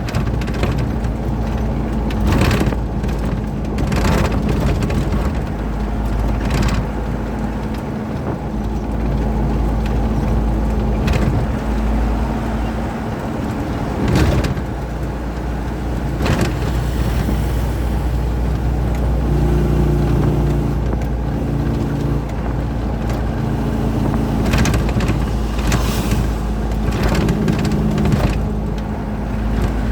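Truck driving on a highway: a steady engine drone and road rumble, with a dozen short knocks and rattles scattered through it.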